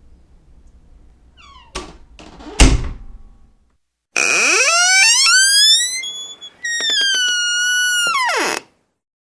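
Door hinges squeaking, with a door knocking shut: a light knock, then a heavier thud about two and a half seconds in. After that come two loud, high squeals from the hinges: the first rises in pitch, and the second holds steady and then drops away at the end.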